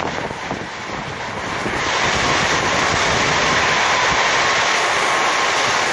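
Propane hand torch flame running against a chew bone, a steady rushing hiss that grows louder about two seconds in, with wind buffeting the microphone.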